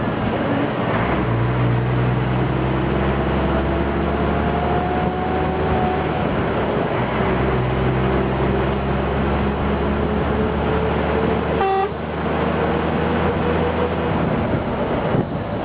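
Scania truck engine running steadily under a heavy load, its pitch slowly rising and falling. A short horn toot sounds near the end.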